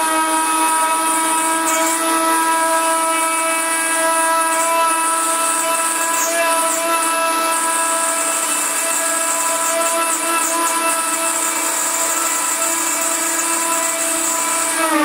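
CNC router spindle running with a small end mill milling a 10 mm aluminium plate: a steady whine with a high hiss over it.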